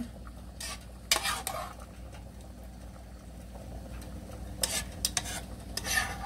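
Metal tongs clicking and scraping as wet strips of carrot, onion and bell pepper are lifted and laid over fried fish in a plastic container: a few short scrapes, the loudest about a second in and near the end.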